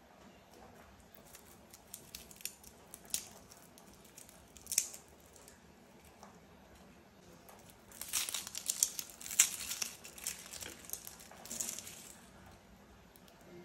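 Fingers peeling the dry skins off charred garlic cloves, with a few faint crackles. About eight seconds in comes a louder stretch of crinkling and tearing as the blackened papery skin of a charred red onion is peeled.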